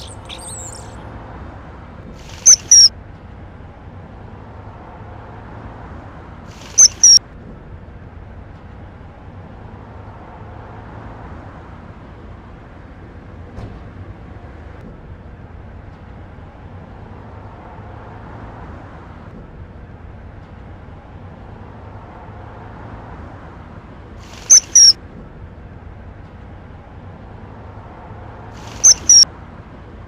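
Common kingfisher giving four sharp, shrill, high-pitched double calls, spaced several seconds apart, over a steady low hiss.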